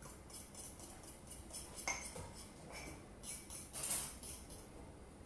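A spoon stirring thick mug-cake batter in a ceramic mug, scraping and clinking against its sides in quick strokes, about three a second, with a couple of brief ringing clinks.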